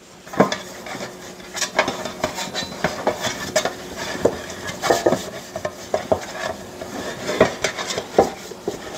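Hands greasing a metal loaf pan with olive oil: irregular light scrapes, rubs and small clinks and taps as the pan is handled on the counter.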